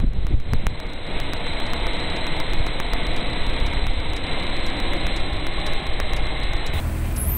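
Steady rushing road and wind noise of a slow-moving vehicle, with wind buffeting the microphone; the sound changes abruptly near the end.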